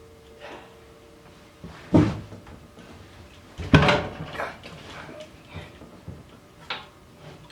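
Heavy metal clunks as a drill press vise is set down and shifted about on the drill press table: two loud knocks about two and four seconds in, then smaller knocks and scrapes.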